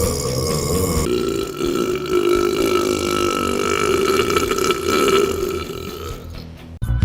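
A person burping: a long, drawn-out belch holding one pitch for about five seconds, fading out near the end.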